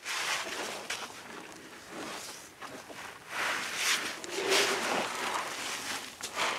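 Young elephants shuffling and moving about, an irregular rustling and scuffing that gets louder a little past halfway.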